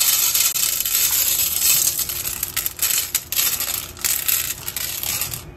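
Dry cat kibble poured from a scoop onto a large stainless steel tray: a dense, loud rattle of many small pieces hitting the metal, dying away near the end.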